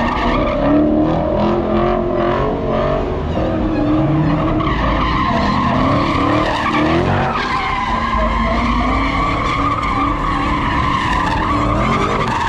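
A car drifting or doing donuts: tires squealing continuously over an engine held at high revs, its note wavering up and down.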